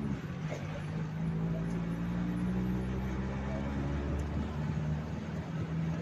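Maruti Gypsy's engine running at a steady pace while the jeep drives along, heard from on board with road noise.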